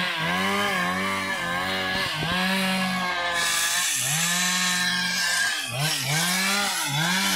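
Two-stroke chainsaw running at high revs while cutting eucalyptus timber. Its pitch sags briefly about six times and climbs back each time, as under the load of the cut.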